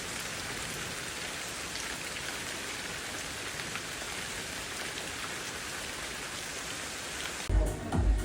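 Steady rain, an even hiss with occasional faint drop ticks. About seven and a half seconds in it cuts off abruptly into music with a beat and voices.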